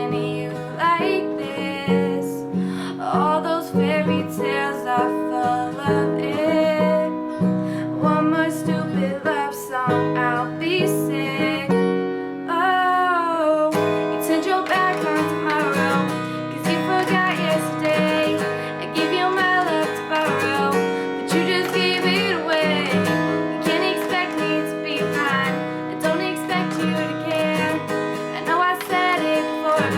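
A woman singing a pop song with sliding, wavering notes over steadily strummed acoustic guitar chords.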